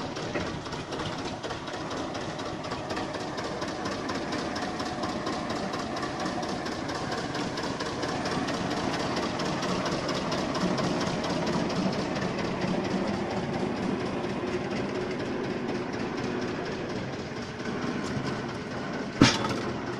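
Deutz D3006 tractor's air-cooled three-cylinder diesel running steadily, a rapid even diesel clatter from its firing strokes. A single sharp clack sounds near the end.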